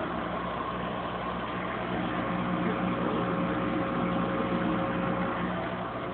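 Aquarium plumbing and pump equipment running under the tank stand: a steady electrical hum over a constant hiss.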